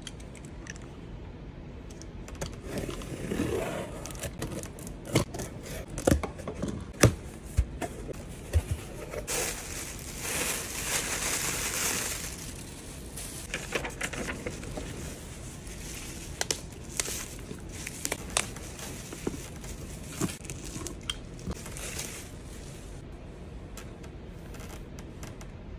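Cardboard shipping carton being opened by hand: packing tape slit and torn, with sharp clicks and knocks of the cardboard flaps. Plastic air-cushion packing wrap then crinkles loudly for a few seconds around the middle, followed by scattered light taps and clicks of cardboard being handled.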